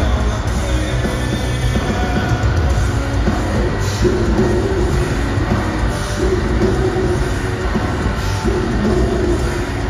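Nu-metal band playing loud live, heard from the audience: heavy, rumbling guitars and bass over drums, with a repeating riff.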